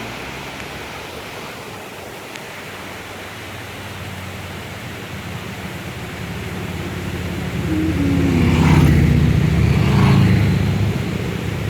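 A vehicle passing by: a low engine hum that builds to its loudest about nine seconds in, its pitch falling as it goes past, then fades away.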